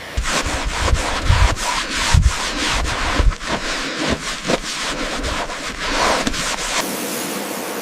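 Quick, irregular hand scraping and rubbing strokes on a car's body shell, stripping it down to bare metal, with some low thumps among them. About seven seconds in it gives way to a steadier hiss.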